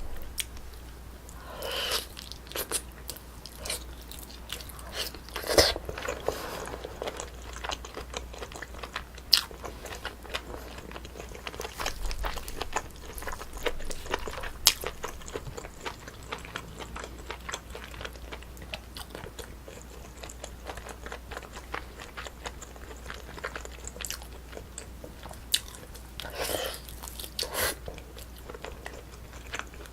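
Close-miked eating sounds: someone chewing and biting braised spicy chicken (dak-bokkeum-tang), with many small mouth clicks throughout. There are a few louder bites about two and five seconds in and again near the end.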